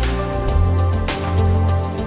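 Background music: held tones over a deep bass, with a sharp percussion hit about a second in.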